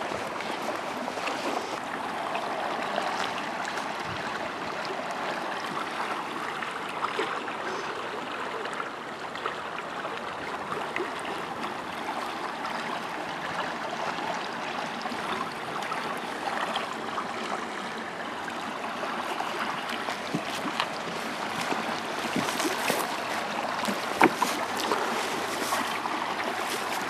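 Steady rushing of a fast-flowing river, with a few small knocks near the end.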